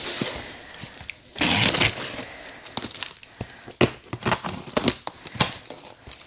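A utility knife slicing through packing tape on a cardboard box, with the cardboard scraping and crackling as the flaps are pulled open. The sound comes as a run of short scrapes and clicks, loudest about a second and a half in.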